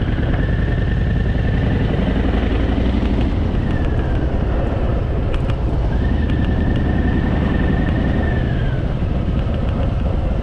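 Harley-Davidson Fat Boy's V-twin engine running steadily on the move, with a high thin whistle that sounds twice, each time sliding down as it fades.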